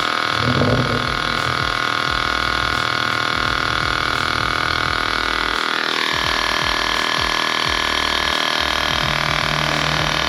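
Battery-powered portable tyre inflator's compressor running steadily while pumping up a car tyre, with a steady whine that steps down in pitch about six seconds in.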